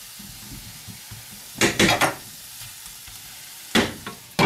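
Vegetables sizzling steadily in an iron skillet, with a wooden spatula scraping and knocking against the pan about one and a half to two seconds in. Near the end, a couple of sharp knocks as a glass lid is set onto the pan.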